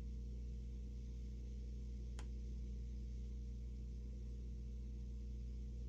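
Steady low electrical hum under quiet room tone, with a single faint click about two seconds in.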